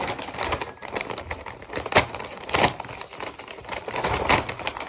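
Packaging being handled and opened: crinkling and rustling with a rapid run of small clicks and several sharper knocks.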